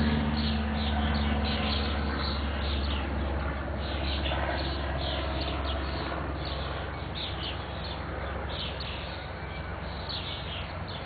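A fledgling songbird's begging calls: many short, high chirps repeated over and over. A low engine rumble fades out over the first few seconds.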